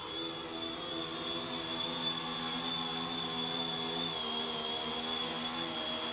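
HobbyKing X900 tricopter's electric motors and propellers buzzing in flight, the pitch rising and falling as the throttle changes, with a thin steady high whine above.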